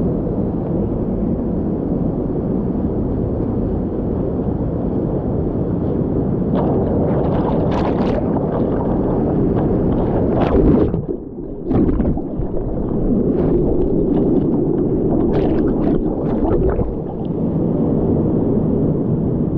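Rushing, splashing water of a waterslide ride heard from a rider-mounted GoPro, with a loud surge of splashing about ten seconds in followed by a brief dip in level.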